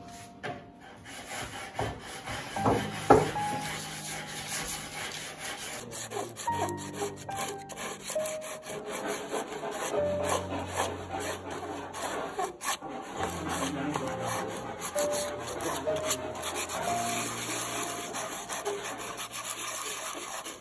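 A hand-held sanding block is rubbed back and forth over a clamped hardwood block, the green sandalwood blank for a guqin's yueshan bridge, making a continuous scratchy rasping. There are two sharp knocks about three seconds in. Soft background music plays underneath.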